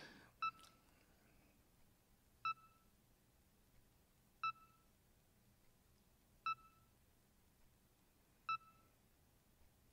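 BrailleSense 6 braille notetaker's progress beep, its little "heart monitor sound": a short electronic beep every two seconds, five in all, signalling that a web search is still loading.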